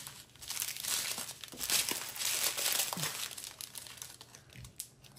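Small plastic bag of diamond painting drills crinkling as it is handled, the crinkling dying down after about three and a half seconds to a few light ticks.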